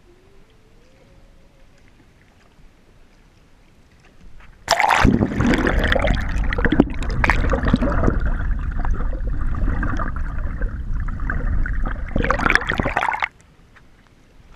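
Water gurgling and sloshing around a GoPro camera held underwater: a loud, muffled rush full of crackles that starts suddenly about five seconds in and cuts off a little before the end as the camera comes back out of the water.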